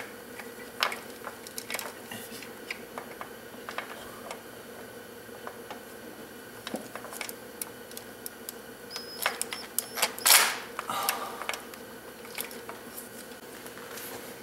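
Ratchet and socket working bolts loose on a GM 3.8 L V6's valve cover and upper engine: scattered clicks and metal clinks, busier and with a louder rasping burst about ten seconds in.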